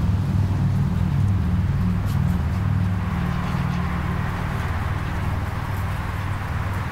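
A steady low rumble, with a hiss that rises about three seconds in.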